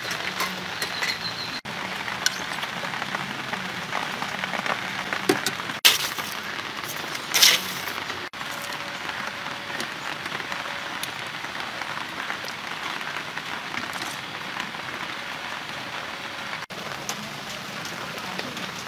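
Steady hissing background noise, with two short sharp clicks, one about six seconds in and a louder one about a second and a half later.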